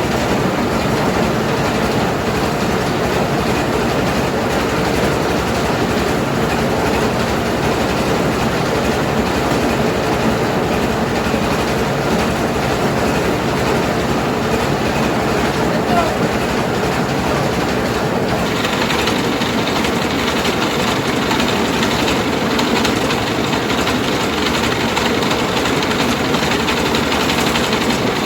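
Mobile rice milling machine running: its engine and milling works make a loud, steady mechanical din. About 18 seconds in, a higher hiss joins the sound.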